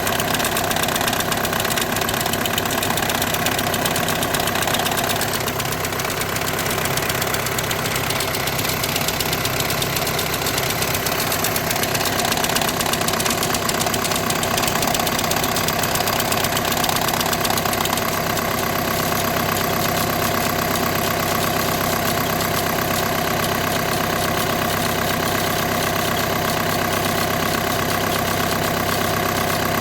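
Volkswagen engine running steadily at idle with a constant mechanical noise. This is the strange sound that the title ties to clutch-plate vibration and the clutch bearing of the DSG gearbox.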